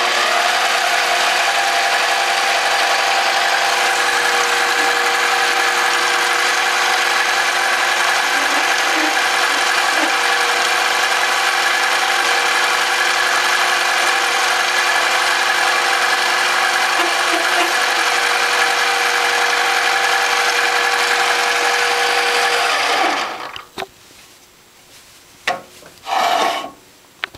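Microlux 7x14 mini lathe running, spindle turning an aluminum block while a centre drill in the tailstock chuck drills a centre hole: a loud, steady machine whine with several fixed tones. It stops about 23 seconds in, followed by a couple of short knocks.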